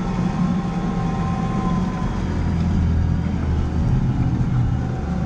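JCB Fastrac 4220 tractor's six-cylinder diesel engine running steadily under load as it pulls a plough through wet, heavy ground. The low engine note grows stronger about two seconds in.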